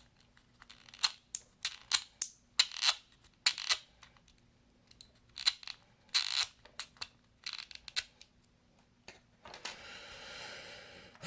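Small repair tools clicking and scraping against an opened iPhone SE while prying at its glued-in battery: a string of irregular sharp clicks, then a steady hiss for about the last two seconds.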